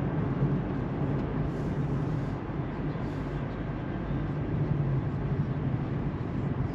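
Steady road and engine noise inside a moving car's cabin, a constant low hum.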